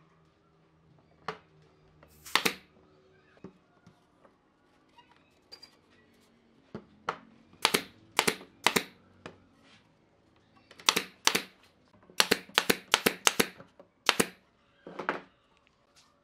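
A pneumatic nail gun firing about a dozen sharp shots into glued wooden strips, in uneven runs, some less than half a second apart, fastening the glue-up.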